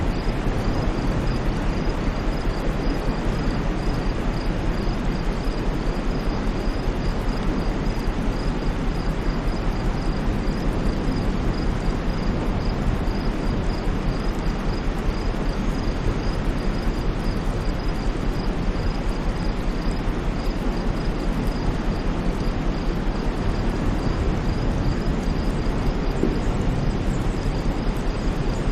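Steady white-noise track: an even, unchanging rushing hiss, heavier in the low end. A faint high pip repeats about twice a second above it.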